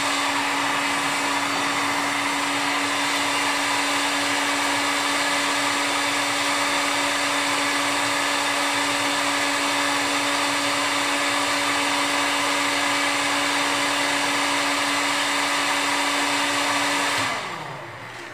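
Heat gun running steadily, a whirring fan with a steady hum, then switched off near the end, its fan spinning down with a falling pitch.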